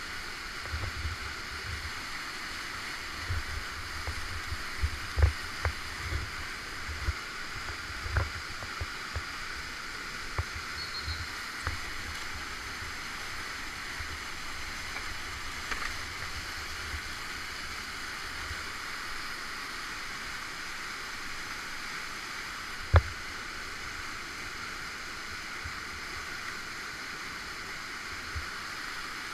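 Whitewater rushing and churning steadily around a kayak held in a hole below a drop. Low thumps and knocks come now and then, most in the first half, with one sharp knock later on.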